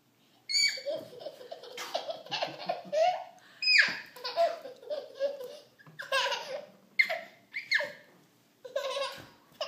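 A toddler laughing in repeated high-pitched bouts of giggles, starting about half a second in, with one squeal sliding down in pitch about four seconds in.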